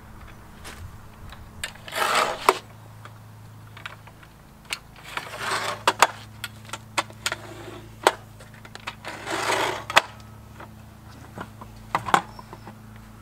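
Folding camping table's metal legs clicking and clattering as their push-button catches are released and the legs are folded down flat against the tabletop: a string of sharp clicks and clacks with a few short rattling scrapes.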